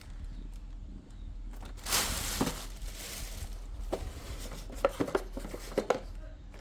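Packaging being handled during an unboxing: a rustling, tearing noise for about a second and a half, then a few sharp clicks and knocks near the end.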